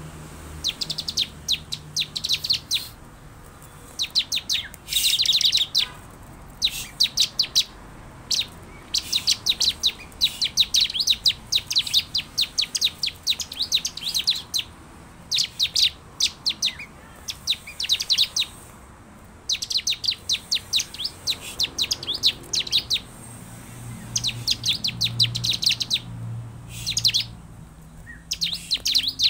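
Bar-winged prinia (ciblek) calling: rapid series of high-pitched notes in bursts of one to two seconds, broken by short pauses and repeated over and over.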